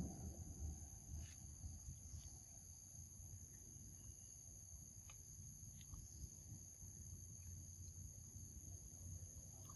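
Faint, steady high-pitched drone of insects, unbroken throughout, over a low outdoor rumble, with a few faint soft clicks.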